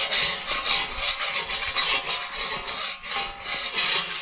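Loud rhythmic scraping or rasping strokes, about two a second.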